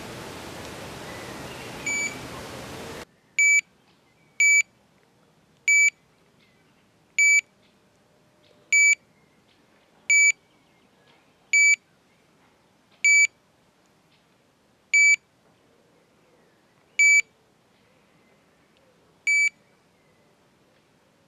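Electronic carp-style bite alarm giving a dozen short, identical high-pitched single bleeps, about one a second at first and slowing to about one every two seconds. Wind hiss is heard for the first few seconds, then drops away.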